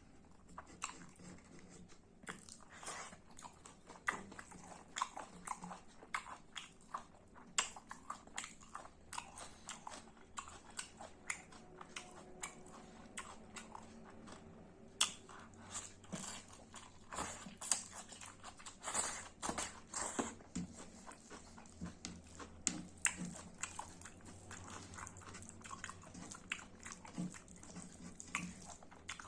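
A person chewing pork and boiled vegetables close to the microphone, with many irregular smacking clicks of the mouth.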